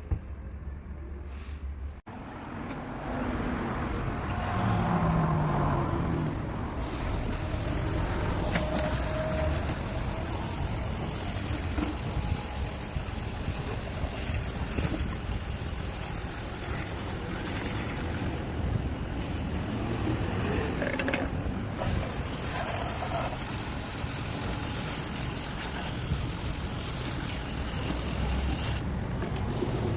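Water running from a tap and splashing onto and into an ethanol fireplace burner as it is rinsed, starting suddenly about two seconds in.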